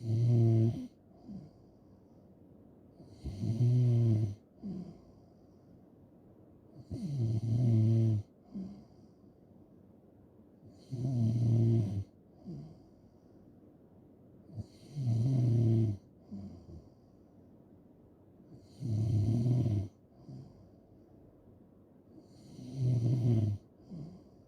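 A person snoring in a steady rhythm: seven loud, buzzing snores about four seconds apart, each lasting about a second. Each snore is followed by a short, faint breath.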